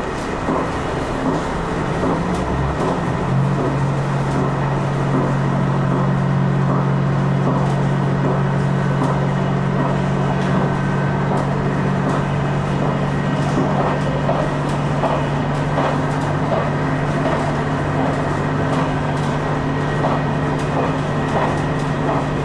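Diesel limited-express railcar running at speed along the track. Its engine drone strengthens about three seconds in and then holds steady, over rolling wheel-and-rail noise.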